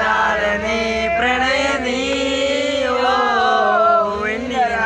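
A man's voice singing long held notes that waver and glide in pitch, as part of a Malayalam song.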